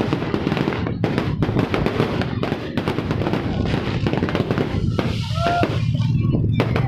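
Fireworks going off in rapid succession, with many sharp bangs and crackles, over music playing in the background.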